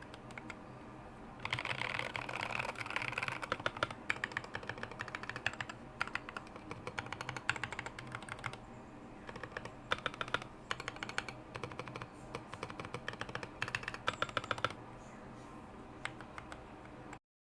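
Typing on a Tokyo60 mechanical keyboard with Raed switches and sculpted MT3 keycaps: fast runs of keystrokes broken by short pauses, going lighter near the end and cutting off suddenly.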